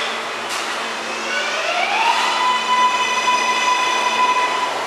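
R143 subway train's electric propulsion whining as it pulls out from a stop: about a second in, a tone rises in pitch and then holds a steady high note while the train gathers speed.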